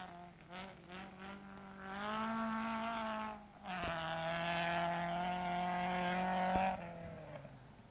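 Racing car engine revving hard, climbing in pitch, then held at a high steady note for about three seconds before falling away near the end.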